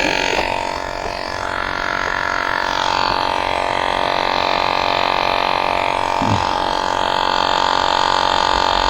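Cordless electric tire pump running with a steady drone, inflating an e-bike tire to about 35 psi.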